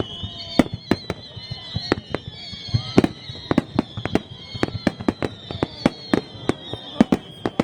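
Aerial fireworks bursting in a rapid barrage, with loud sharp bangs at irregular intervals, about three a second, over a high wavering whistling tone.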